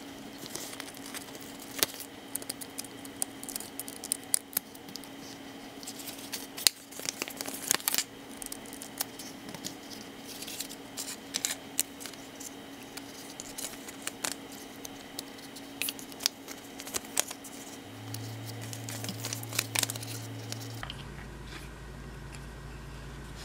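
Small hard-plastic toy parts clicking and tapping as they are snapped together and handled, over a steady low background hum that changes abruptly near the end.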